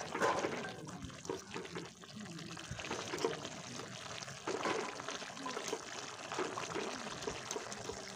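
Broth with shredded bamboo shoot and pork boiling and sloshing in a metal kadai as a fork stirs and turns it, with light clinks and scrapes of the fork against the pan.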